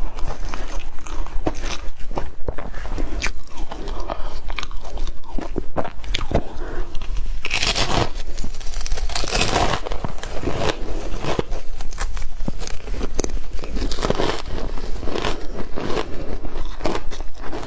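Close-miked biting and chewing of crunchy yellow powdery snow: dense crackling crunches, with a louder, longer crunch about eight seconds in.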